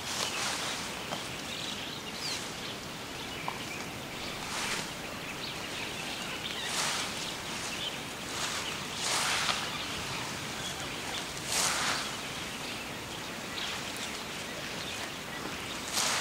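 Tall grass rustling as Asian elephants feed in it: short swishes every two to three seconds over a steady outdoor hiss.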